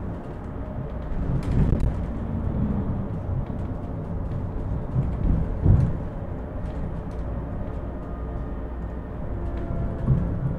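Inside a moving Ebusco battery-electric city bus: steady road and tyre rumble with faint whining tones from the electric drive that slide in pitch near the end. A few knocks and rattles come as it goes over bumps, the loudest about five and a half seconds in.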